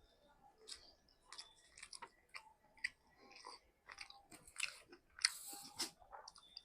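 Close-miked chewing and biting of food: irregular wet clicks and crunches, with a louder, longer crunching burst about five seconds in.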